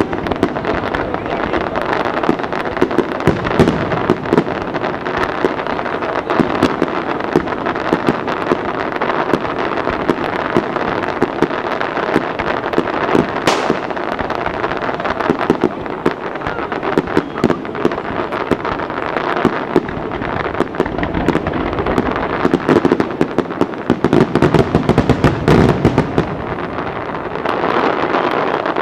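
Aerial fireworks display: a dense, continuous barrage of shell bursts and crackling, many reports overlapping, with a heavier stretch of booms a little before the end.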